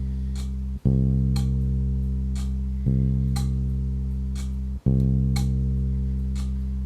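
A low bass guitar note, plucked again about every two seconds and left to ring, with an analog clock ticking about once a second over it.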